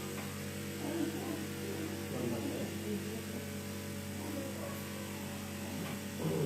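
Steady electrical mains hum, with faint, indistinct sounds now and then.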